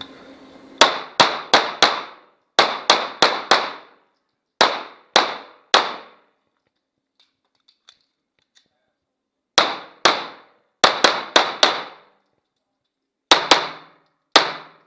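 Pistol shots fired in rapid strings, about twenty in all, each a sharp crack with a short ringing tail. Several quick groups come at roughly three or four shots a second, with a pause of a few seconds in the middle before the firing resumes.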